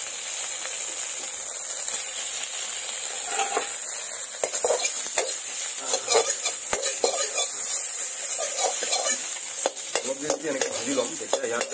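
Chunks of fatty pork sizzling in a dry metal wok (kadai) with no oil added, their own fat rendering out to fry in. A metal spoon stirs them, scraping and clinking against the pan, with the clinks coming from about four seconds in.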